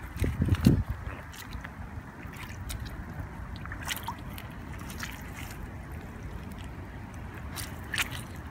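Footsteps in canvas Converse sneakers squelching and splashing through wet mud and shallow puddles, with a loud low thud in the first second and a few sharper squelches later.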